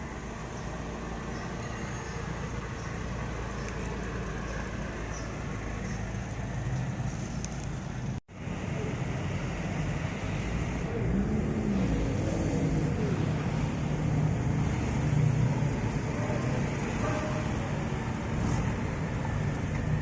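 Motor vehicles running with road traffic noise, a steady low rumble; the sound cuts off sharply about eight seconds in and comes back a little louder.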